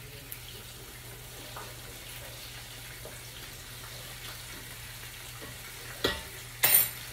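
Fish fillet frying in oil in a skillet, a steady sizzle, with two loud sharp clatters near the end, like a utensil knocking against the pan.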